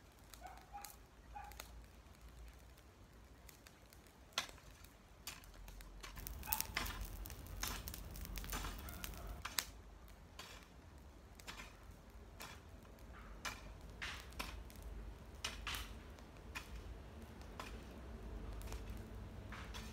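Garden hoe chopping and scraping into soil: irregular thuds and scrapes, busiest in the middle.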